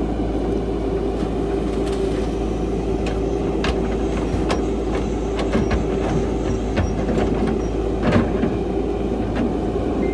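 Cat 312 hydraulic excavator's diesel engine running steadily under work, with a constant whine and a few sharp clanks.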